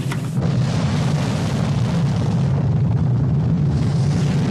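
Space shuttle rocket engines roaring steadily in flight, a deep continuous rumble that swells up about half a second in.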